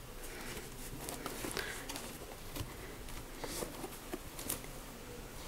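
Faint handling noise of a sneaker being turned over in the hands: soft rustles of the knit upper and scattered light taps and ticks.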